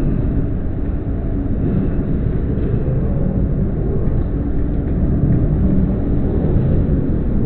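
Subway train running at speed, heard from inside the car: a steady low rumble of wheels on the track.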